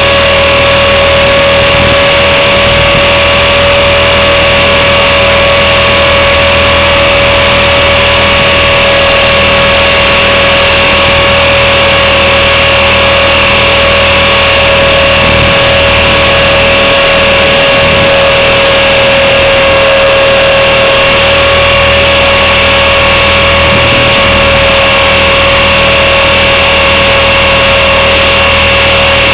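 Blade 400 electric RC helicopter's motor and rotor heard close up from its own onboard camera, holding a steady high whine in flight.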